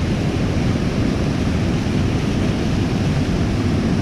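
Waterfall's rushing water: a steady, unbroken rush, heaviest in the low end.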